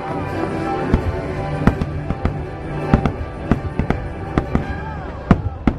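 Fireworks bursting: a rapid series of sharp bangs, about a dozen, over loud show music.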